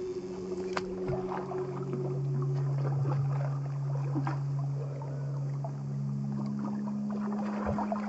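Background music of held low notes that shift pitch every couple of seconds, over irregular water splashing from a hooked trout thrashing at the bank.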